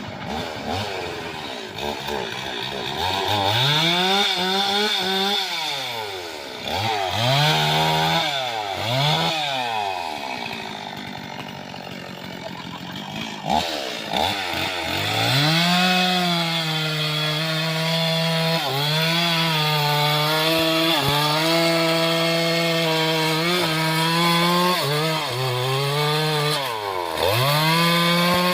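Stihl two-stroke chainsaw revved up and down several times, then held near full throttle for most of the second half with brief dips as it works through acacia wood.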